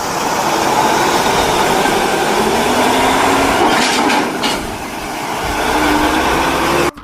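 Steady, loud rushing of a water spray washing a toy vehicle, with a few sharp spatters about four seconds in and a faint tone slowly rising underneath. It cuts off abruptly near the end.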